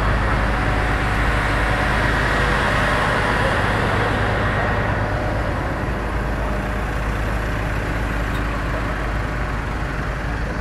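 Car ferry's engine running steadily: a low hum under a constant noisy rush, the rush easing slightly about halfway through.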